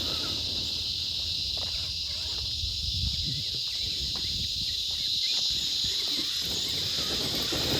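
Steady high-pitched chirring of insects, with a low rumbling noise underneath and a few faint ticks.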